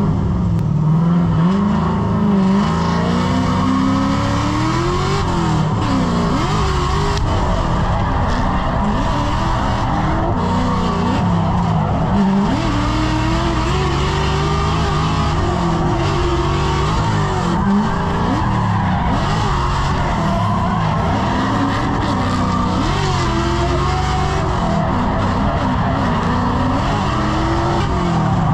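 Drift car engine revving up and down repeatedly under hard throttle, with tyres squealing as they spin and slide, heard from inside the roll-caged cabin.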